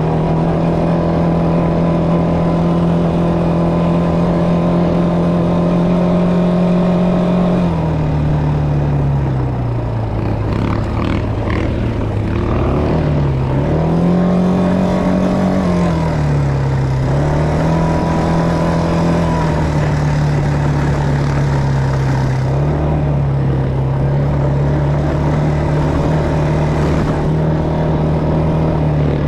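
ATV engine running under the rider at a steady pitch, dropping about eight seconds in, then revving up and easing off a couple of times before settling to an even, slightly lower speed. A short clatter around ten to twelve seconds in, over rougher ground.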